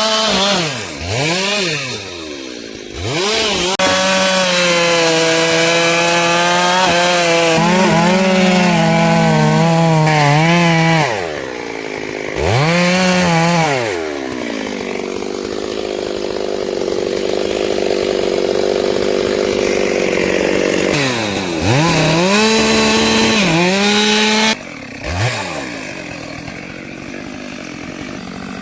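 Stihl two-stroke chainsaw cutting mahogany, its engine revving up and down over and over and dropping back toward idle several times. In the middle it holds a long, steady, lower-pitched run as it works through the wood.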